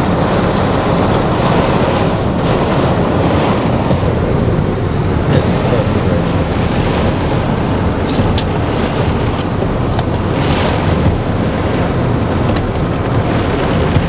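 Loud, steady rush of high storm wind and heavy rain from a small tornado, heard from inside a car, with wind buffeting the microphone. Several sharp ticks stand out in the second half.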